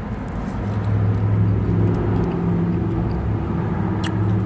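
Car engine idling close by: a steady low hum that swells about a second in and holds. A short sharp click near the end.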